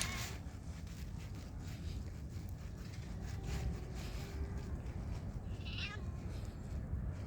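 Black-and-white stray cat meowing, a drawn-out call about halfway through.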